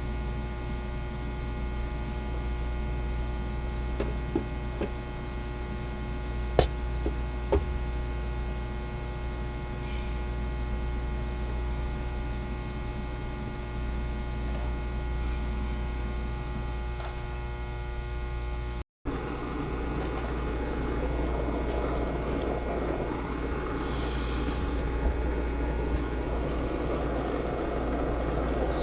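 Steady machinery hum made up of many constant tones, with a few light clicks in the first third. After a break about two-thirds of the way through, a rougher noise is added over the hum.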